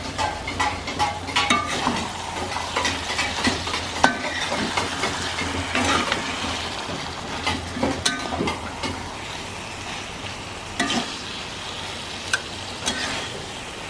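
Food sizzling as it fries in a pan, stirred with a spoon that clicks and scrapes against the pan again and again.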